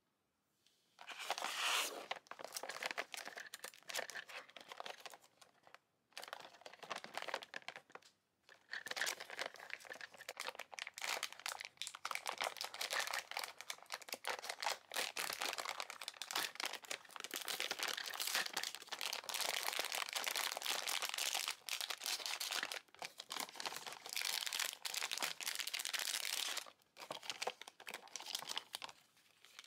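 Toy packaging being opened by hand: a printed lid peeled and torn off a pink plastic tray, crinkling and tearing in long stretches, with short pauses about six and eight seconds in and near the end.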